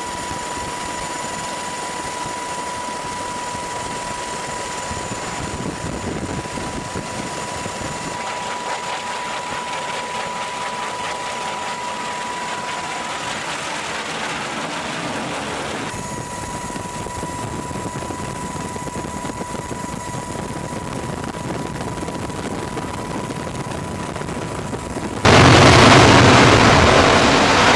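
F-35C fighter's jet engine: a steady rush with a high whine as the jet flies, then, about 25 seconds in, a sudden much louder blast as the jet is launched off a carrier catapult.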